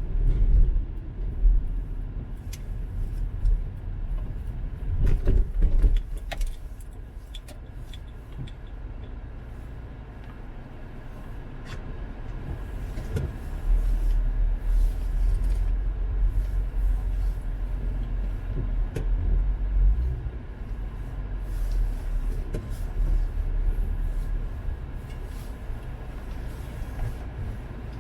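Car driving, heard from inside: a low rumble of engine and road noise that rises and falls, with scattered light clicks and knocks.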